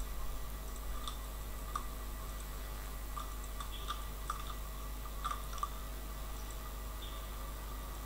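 Faint, scattered clicks of a computer mouse and keyboard, a few of them close together in the middle, over a steady electrical hum and hiss from the microphone.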